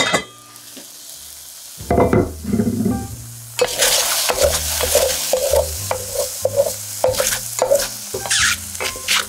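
A stainless-steel saucepan lid clinks as it is lifted off. From about four seconds in, a wooden spatula stirs and scrapes sliced shiitake mushrooms in the hot, steaming pot in quick repeated strokes, over a steady hiss.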